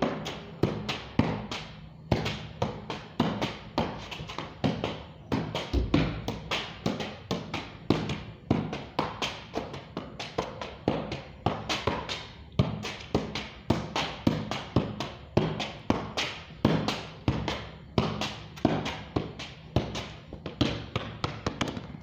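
Football being kept up and controlled with the feet: a steady run of thumps as the ball strikes the foot, about two a second.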